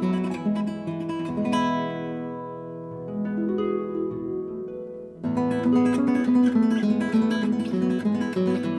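Background music: an acoustic guitar playing a plucked melody. It softens to a few sparse notes for a couple of seconds, then comes back fuller about five seconds in.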